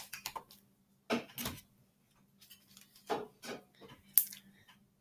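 Slime being squeezed and worked by hand, making short bursts of wet clicking and popping in about three clusters, with one sharper click a little after 4 s. A faint steady hum runs underneath.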